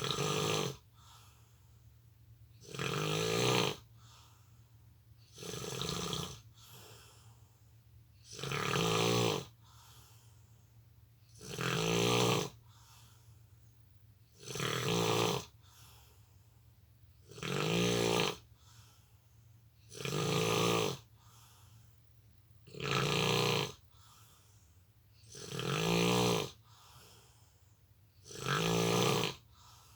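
A sleeping person snoring: about ten long snores, one roughly every three seconds, with quiet gaps between.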